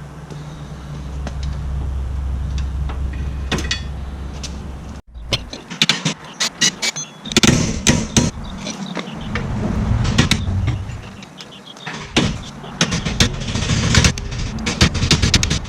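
A steady low hum for about five seconds, then it cuts off. After that, irregular metallic clanks, knocks and clicks of hand tools working on a car's rear brake caliper and bracket.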